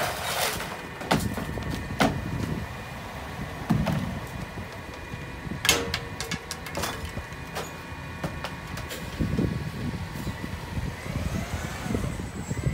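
Recyclables tipped by hand from curbside bins into a rear-loader garbage truck's hopper: several sharp clatters and rattles of bins and containers landing, over the truck's engine running at idle.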